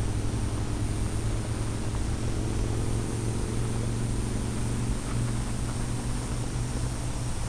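Airflow rushing over a radio-controlled model glider in flight: a steady noise, with a steady low hum beneath it.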